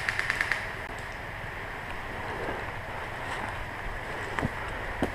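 Steady wind and handling noise on a head-mounted action camera's microphone, with a quick run of even clicks at the very start and a few single knocks near the end.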